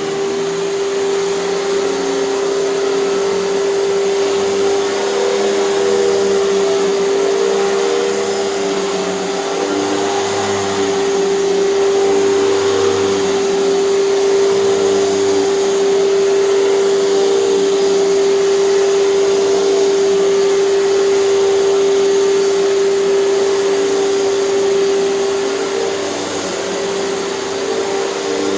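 Hoover TurboPower 5000 canister vacuum running with its power nozzle: a loud, steady motor whine with one strong held tone, swelling slightly in the middle.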